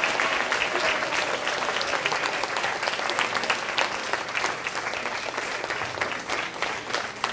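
Audience applauding, a dense patter of many hands clapping that thins slightly toward the end.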